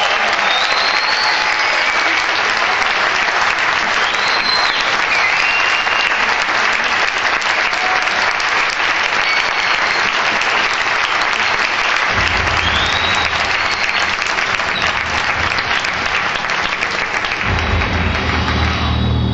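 Audience applauding steadily, with a few short whistles in the first seconds. Low music comes in under the applause about two-thirds of the way through and grows stronger near the end.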